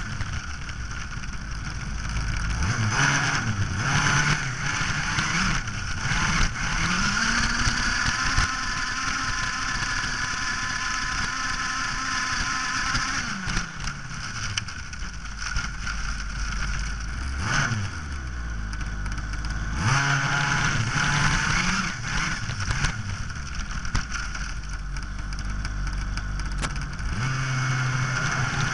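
Onboard sound of a radio-controlled buggy's small engine, revving up and down again and again as the car is driven, with a steady rushing noise of grass and air over it.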